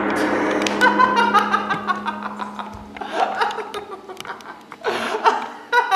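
A person laughing, a run of short ha-ha pulses, over a low held musical note that fades out after about three seconds.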